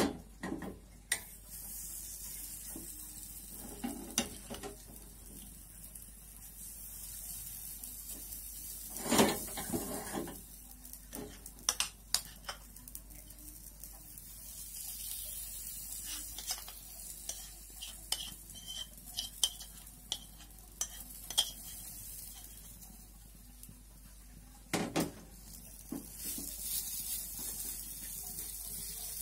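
Banana pancake batter sizzling in a small GreenPan mini nonstick pan, with a plastic rice paddle scraping and knocking against the pan as the batter is stirred and broken up. The sizzle swells and fades, under scattered knocks, the loudest about nine seconds in.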